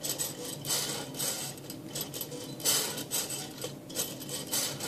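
Hand-cranked wave machine running, its crank mechanism and metal rods clicking and scraping in repeated bursts about twice a second.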